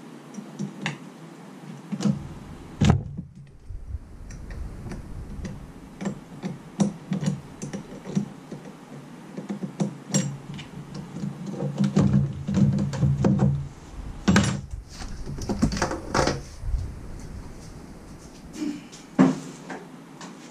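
Irregular clicks, taps and knocks of hands and tools working at a Jeep Wrangler's battery and fuse box during battery removal, with two sharper knocks, one about three seconds in and one near the end.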